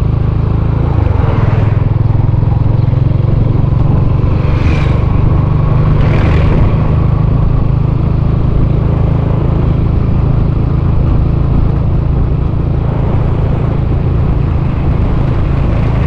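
Motorcycle ridden at a steady cruise: a continuous engine and wind rumble, with two short whooshes about five and six and a half seconds in.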